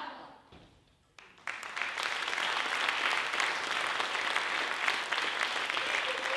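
Audience applauding, starting suddenly about a second and a half in after a moment of quiet and then holding steady.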